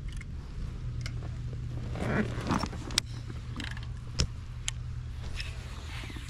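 Fishing boat on the water: a steady low hum with scattered sharp clicks and knocks of gear handled aboard, and a brief rustle about two seconds in.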